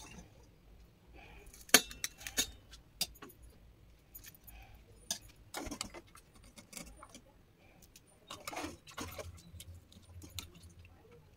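Metal spoon clinking and scraping against a metal plate while rice is served, in scattered separate clinks with one loud clink about two seconds in.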